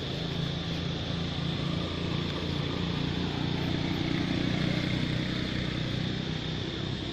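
A motor vehicle engine running steadily, growing a little louder about halfway through, with a steady high-pitched hum above it.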